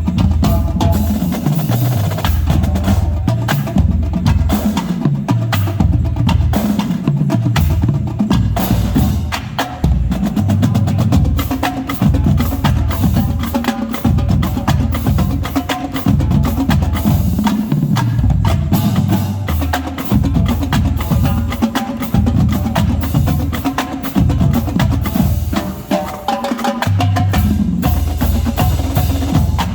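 College marching drumline playing: snare drums, tenor drums and tuned bass drums in dense, rapid patterns, with the bass drums playing runs that step down in pitch.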